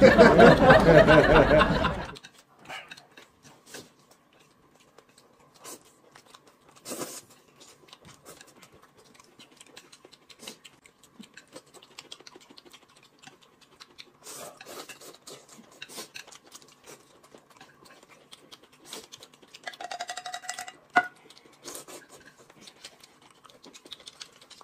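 Eating at a table: faint, scattered clicks of chopsticks on plates, with chewing and noodle slurping, after a voice in the first couple of seconds.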